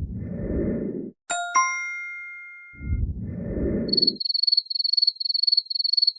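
A run of separate sound effects: a low, rumbling noise burst, then two quick bell-like dings that ring out, a second low noise burst, and then a high-pitched, rapidly trilling electronic ring lasting about two seconds.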